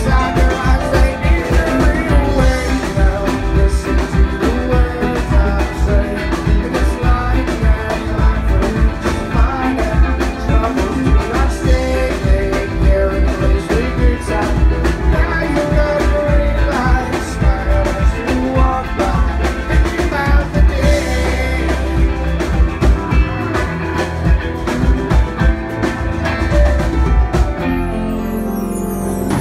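Live rock band playing a jam on electric guitar and drum kit. About 28 seconds in, the drums drop out, leaving held guitar notes.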